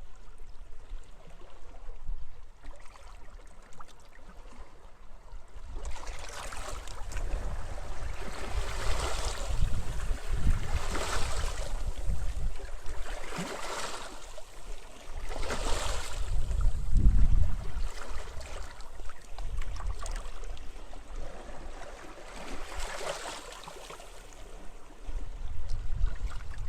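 Sea waves washing onto a beach, coming in as hissing surges a couple of seconds apart through the middle stretch and once more near the end, over a low rumble of wind.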